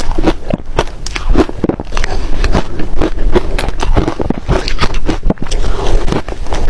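Ice being bitten and chewed close to the microphone: a fast, irregular run of sharp crunches and cracks.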